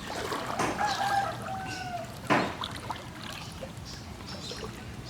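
Water splashing in floodwater, with a sharp splash about every three seconds, as if someone is wading or paddling. Between the splashes there is a short, high, wavering animal call.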